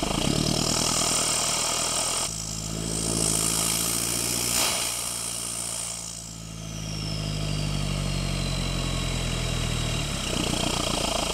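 Chevy Colorado ZR2's 2.8-litre Duramax four-cylinder turbodiesel running on the road, with its engine note stepping up about two seconds in, a strong high hiss of intake and turbo air over it, and a high whistle that falls slowly over the last few seconds.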